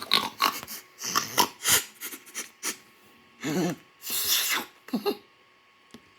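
A cartoon minion's short wordless vocal noises: a string of brief grunts and breathy sounds, with a hissy breath just past the middle.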